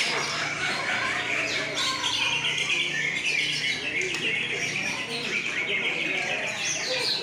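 Many caged songbirds singing at once: a dense, continuous, overlapping chorus of high chirps and rapid trills.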